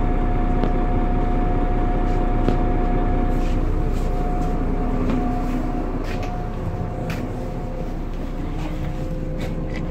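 Interior of a Solaris Urbino 12 city bus under way: steady running noise with a whine from the drivetrain and light rattles from the cabin. About six seconds in the whine fades and a lower one takes over as the noise eases a little.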